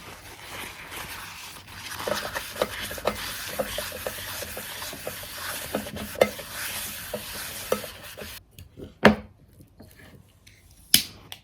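Food sizzling in a frying pan while being stirred, with a utensil clicking and scraping against the pan. The sizzle stops abruptly about eight seconds in, followed by two sharp knocks.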